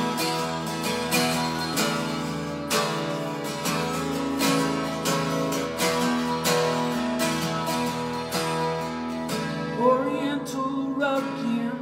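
Acoustic guitar strummed in steady chords, an instrumental break between sung lines of a song.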